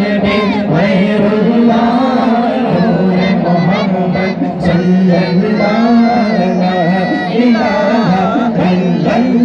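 Two male voices singing a naat, an Islamic devotional song, into microphones, with melodic lines that glide and turn over a steady low drone.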